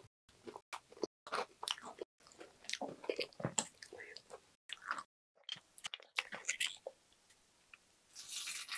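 Close-miked chewing of strawberry cheesecake with crumble topping: many small wet mouth clicks and light crunches. Near the end, a short rush of sound as strawberry milk is poured onto the cake.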